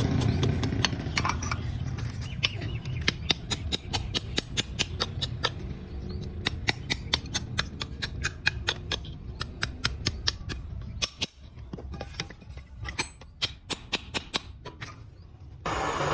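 Quick light hammer taps on steel, about three a second, each with a short metallic ring, with a brief break about two-thirds through.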